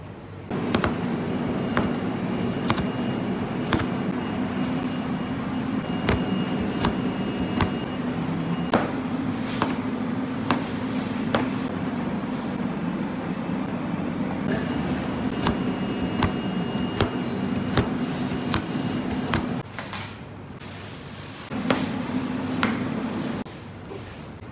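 Steady hum of kitchen ventilation, with sharp light knocks about once a second as pastry pieces and a knife meet the steel tray and counter. The hum drops away briefly twice near the end.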